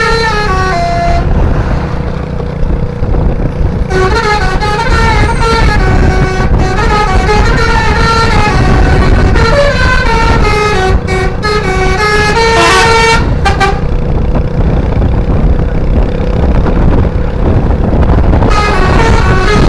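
A tour bus's Basuri telolet horn plays fast stepping melodic runs of several air-horn tones. It plays in phrases, with pauses of a few seconds after the first second and again from about 14 s, over the steady low rumble of the bus's engine.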